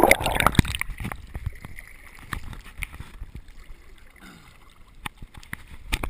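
River water splashing and gurgling around the camera as it dips under the surface, loudest in the first second. It then settles into quieter lapping with scattered small knocks and a sharper knock near the end.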